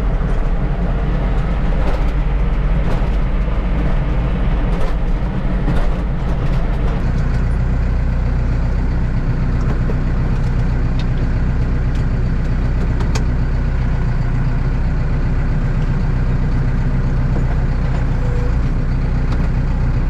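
Farm tractor's diesel engine running steadily, heard from inside the cab while driving, with scattered clicks and knocks through the first several seconds.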